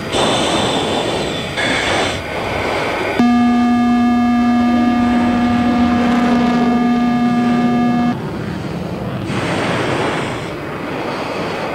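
F-16 fighter jet noise, a steady rush of engine and airflow. About three seconds in, a loud, steady electronic warning tone from the cockpit sounds for about five seconds and cuts off, and the rushing jet noise carries on.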